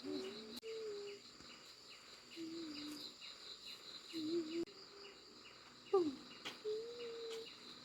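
Steady insect chorus: a high pulsing trill with repeated short chirps about three a second. Over it come a few faint voice-like calls, one falling sharply about six seconds in, and occasional clicks.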